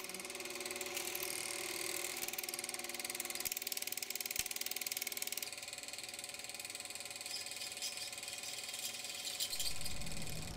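Old film projector running: a rapid, even clatter of the film mechanism over a steady hum, with a low rumble coming in near the end.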